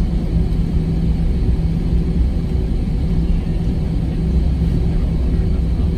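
Airbus A320 cabin noise while taxiing: the jet engines' steady low rumble at taxi thrust, with a steady low hum running through it.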